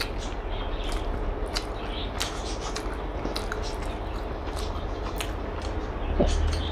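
Close-up chewing and mouth sounds of someone eating biryani: soft wet clicks and smacks every so often over a steady low hum. Near the end a short sound falls in pitch, the loudest moment.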